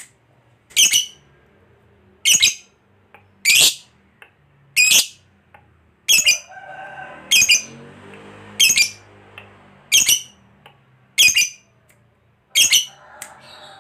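Lovebird giving a run of about ten short, sharp, high-pitched calls, evenly spaced about one and a quarter seconds apart.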